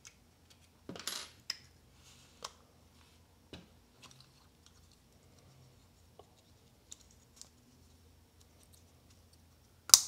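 Small plastic clicks and scraping as the cover of a refrigerator compressor's PTC starter relay is pressed back on by hand: a short scrape about a second in, scattered light clicks, and a sharp snap near the end.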